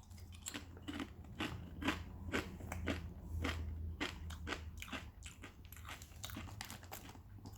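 A person chewing thick-cut kettle-cooked potato chips, a steady run of crisp crunches a few times a second.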